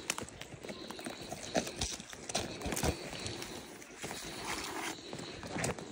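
Footsteps of a person walking through bush, an irregular run of crunching steps on leaf litter and twigs.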